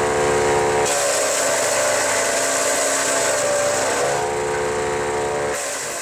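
Haecksler compact wood chipper running while branches are fed through it. The engine note sags and recovers a couple of times as the wood loads the blades, over a steady rushing hiss of chips blowing out of the discharge chute. It fades near the end.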